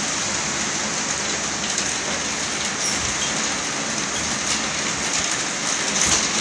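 Torrential rain pouring down steadily in a heavy downpour, with one brief louder surge near the end.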